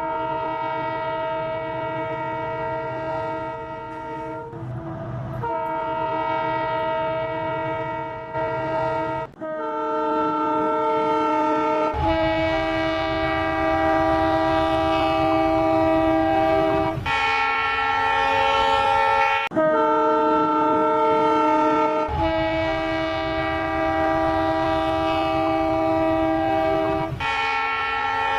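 Multi-note train horn sounding in a string of long held blasts, the chord shifting from blast to blast, over the low rumble of a running train.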